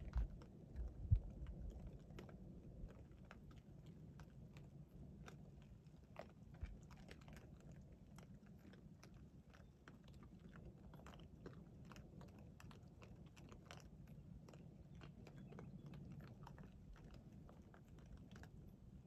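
Feral hogs feeding on the ground: many faint, scattered chewing and crunching sounds, with a couple of louder thumps in the first second or so.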